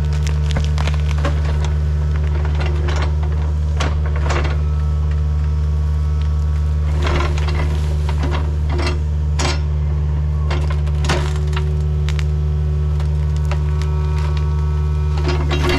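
A machine engine running steadily with a low hum, under irregular sharp cracks and snaps of wood breaking, with a quick cluster of snaps near the end.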